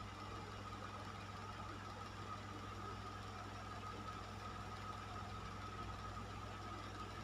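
Fan running steadily: an even rush of air with a low motor hum and a steady higher whine.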